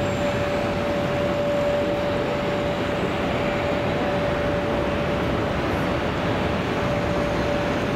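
Jet airliner engines running at idle on the apron and taxiway: a steady rushing drone with a constant mid-pitched whine held over it.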